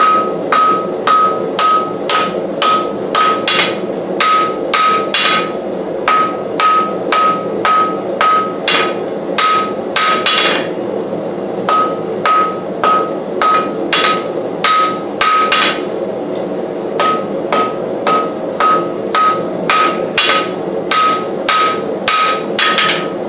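Hand hammer striking hot steel on an anvil, about two blows a second, each with a bright ringing note, pausing briefly twice, as the point of a knife blade is forged. A steady rushing noise runs underneath.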